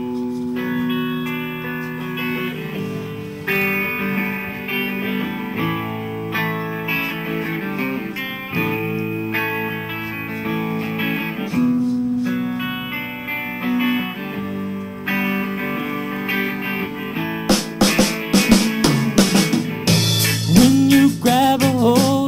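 Live rock band starting a song: electric guitar and bass guitar playing the intro, with the drum kit coming in about three-quarters of the way through and a voice, likely the lead vocal, starting near the end.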